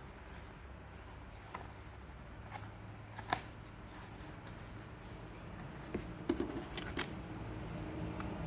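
Packaging being handled and opened by hand: scattered small clicks and rustles, a sharp click about three seconds in and a quick run of clicks and snips around two-thirds of the way through.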